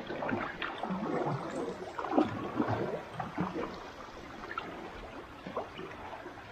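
Kayak paddle strokes splashing and dripping in the water, with the sound of water trickling off the blades. The splashes come thick for the first three seconds, then thin out.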